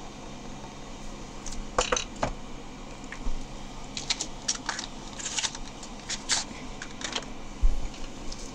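Marker pens and a spiral sketchbook being handled: scattered light clicks and scratchy ticks of pen caps and barrels, with a low thump near the end.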